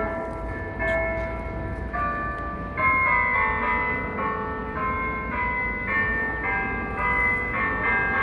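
Bells rung in a melody, one note struck after another every half second or so, each ringing on under the next.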